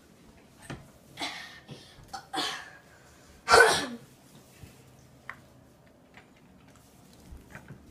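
A person coughing: three short harsh coughs, the third, about three and a half seconds in, the loudest.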